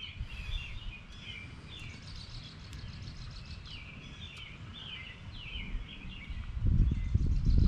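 Small birds chirping repeatedly in the background. About seven seconds in, a low rumble rises and becomes the loudest sound.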